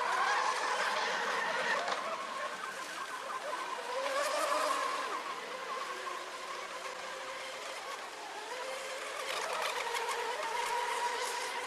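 Whine of model boat motors running on the water, the pitch wavering and gliding up and down as the boats speed up and slow down.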